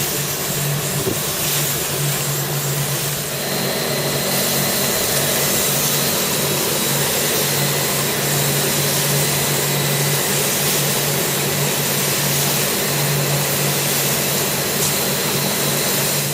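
A motor-driven machine running steadily: a constant low hum under a loud hiss, cutting off suddenly at the end.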